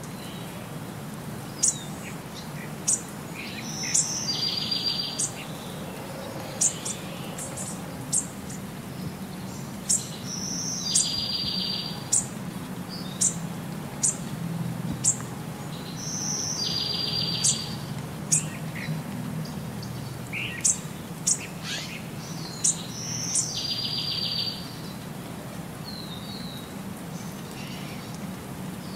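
Birds calling outdoors: a call repeats about every six seconds, a short high note followed by a quick buzzy rattle. Short sharp chips or clicks come about every second or so and are the loudest sounds, over a low steady rumble.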